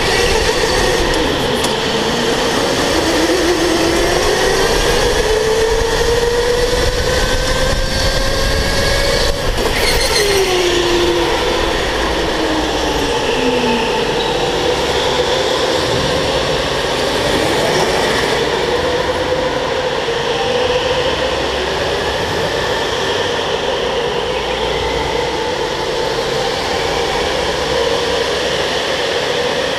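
Electric go-kart motor whining under hard driving, its pitch climbing as the kart accelerates and dropping sharply when it slows for corners, over a steady rush of tyre and running noise.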